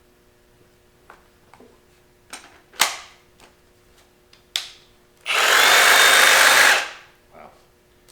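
Milwaukee M18 Fuel Sawzall reciprocating saw handled with a few clicks and knocks, then pulled to full speed without a blade for about a second and a half before winding down.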